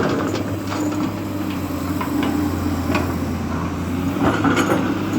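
Heavy diesel engine running steadily with a low hum, with a few short knocks from the machinery.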